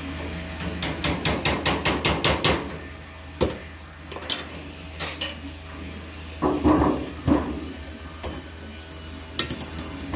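Sharp metallic taps and clanks from hand-working a galvanized sheet-metal duct boot: a quick run of about ten taps, then scattered single knocks and a louder rattle of the sheet metal, over a steady low hum.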